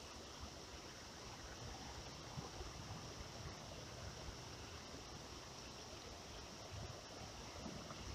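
Faint, steady outdoor ambience by a creek: an even hiss of flowing water with a low rumble underneath.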